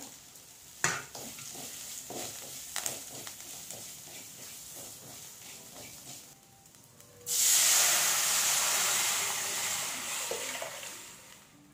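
Crushed garlic, pepper and cumin frying in the hot oil of a tempering, with a wooden spatula stirring and scraping the pan. About seven seconds in, tamarind-tomato rasam water poured into the hot pan sets off a loud hiss that slowly dies away.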